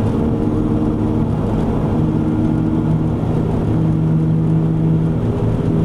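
A 2001 Chevy Venture minivan driving, heard from inside the cabin: a steady road and drivetrain drone with a low hum that shifts in pitch about two seconds in. The van has a worn passenger-side front wheel bearing that roars when weight is on that tyre.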